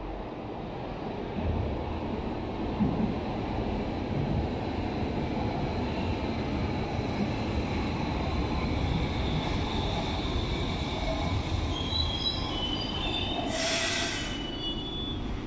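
Berlin U-Bahn train pulling into an underground station: a rumble of wheels on rail that builds as it comes out of the tunnel. High squeals from the wheels and brakes set in over the last few seconds as it slows, and there is a short hiss as it comes to a stop.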